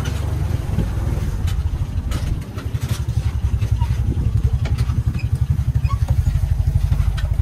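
Single-cylinder 24-horsepower diesel engine of a công nông farm truck running under load as the truck creeps along carrying sand. It chugs with a fast, even thumping that turns into sharper separate beats a couple of seconds in.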